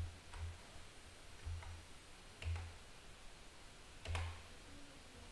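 About five scattered clicks, each with a dull thump, from a computer mouse being clicked and shifted on a desk.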